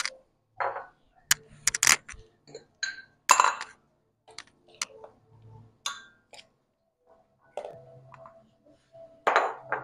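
A spoon clinking and scraping against bowls as wet cat food is scooped out and dished into feeding bowls, with bowls knocked down onto hard stands. It comes as a string of sharp, irregular clinks, the loudest a little over a second in, about three seconds in and near the end.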